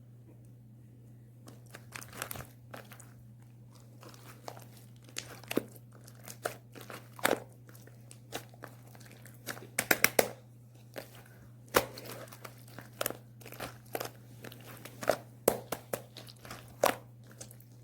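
Slime being worked by hand: irregular sharp clicks and pops, some in quick clusters, as it is squeezed and pressed.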